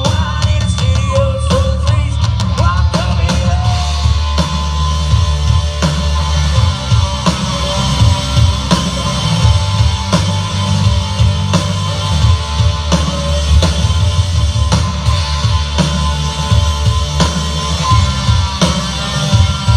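Live rock band playing loud through an instrumental stretch with no vocals: drum kit, bass and electric guitar, the guitar bending notes in the first few seconds.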